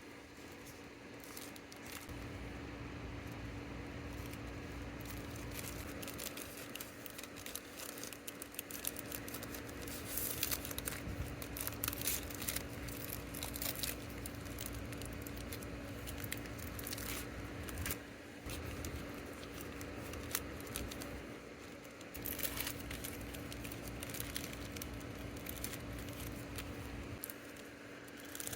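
Packaging being handled by hand: irregular crinkling and rustling with small clicks, busiest in the middle, over a steady low hum.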